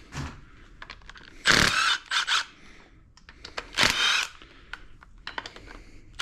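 Cordless power tool running in three short whirring bursts, spinning out engine cylinder head bolts that have already been broken loose, with small metallic clicks between the bursts.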